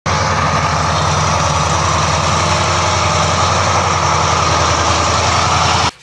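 Ural 4320 6x6 truck's diesel engine running steadily as the truck crawls through deep mud ruts. The engine sound cuts off suddenly near the end.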